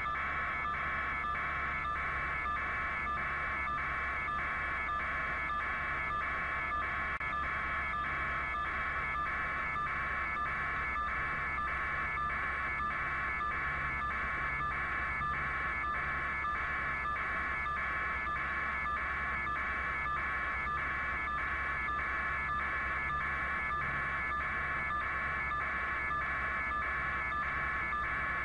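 An alarm-like high electronic tone pulsing about twice a second over a steady low hum.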